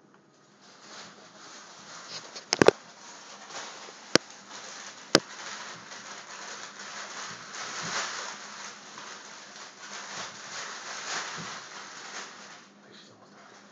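A small dog scrabbling and scratching inside a bag: a long run of rustling and crinkling, with a few sharp clicks in the first five seconds. It dies away near the end.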